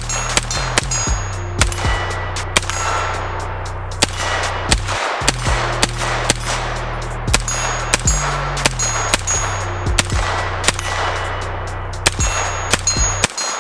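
BattleArms XIPHOS 9, a 9mm direct-blowback AR-style pistol, firing a quick string of single shots, several a second, with steel targets ringing as they are hit.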